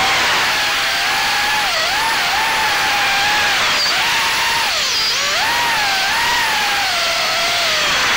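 Ummagawd Acrobrat FPV quadcopter's motors and propellers whining in flight, the pitch constantly rising and falling with throttle.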